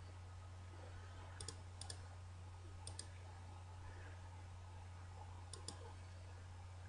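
Computer mouse clicking in quick pairs, four times, over a steady low electrical hum.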